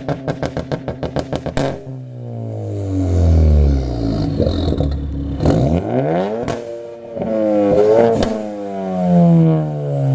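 Tuned Ford Focus ST's turbocharged 2.0-litre EcoBoost four-cylinder, with a catless downpipe and Roush cat-back exhaust, being revved while parked. For the first couple of seconds it stutters quickly and evenly. Then come several revs that rise and sink back toward idle.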